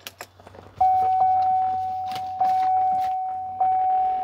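A few soft clicks, then the truck's dashboard warning chime starting about a second in: a single-pitched ding repeated roughly every 1.2 seconds, each one fading before the next.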